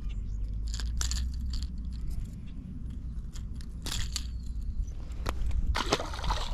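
Steel multi-tool pliers clicking and scraping against a crankbait's metal treble hooks while a small largemouth bass is unhooked, a scattering of short sharp clicks over a steady low rumble.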